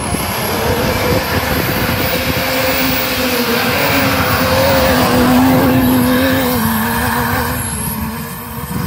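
Off-road tube-frame buggy's engine running hard under load as it climbs a snowy forest track, with a rough, uneven note. The pitch rises a little about halfway through and drops back as it eases off near the end.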